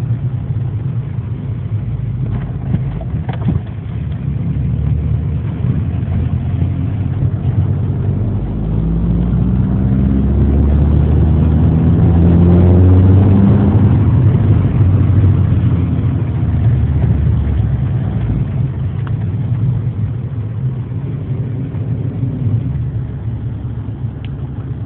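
VW Golf's engine running, revving up from about eight seconds in to a peak a few seconds later, then easing back down to a steady low run.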